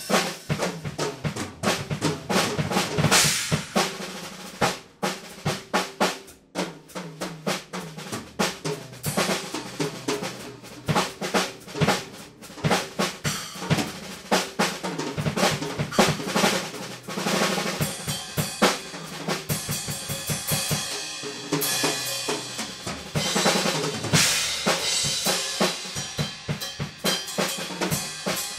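Acoustic drum kit played in an improvised solo: fast, dense snare, tom and bass drum strokes, with a brief break about six seconds in. In the second half the strokes run over a wash of ringing cymbals.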